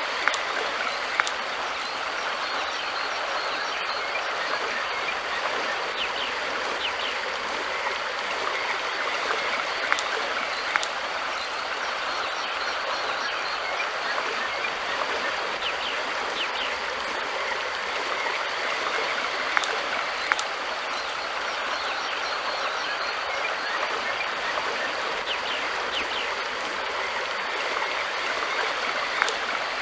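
River water flowing steadily, an even rushing hiss, with a few sharp ticks standing out now and then, some in pairs about a second apart.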